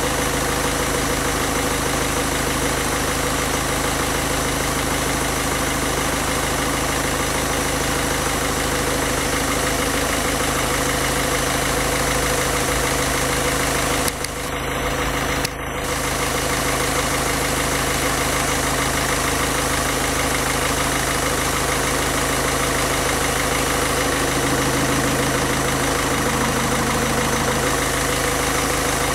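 1.6 HDi diesel engine idling steadily while it runs on fuel drawn from a plastic bottle through hoses during an injection-system cleaning. The sound dips briefly about halfway through.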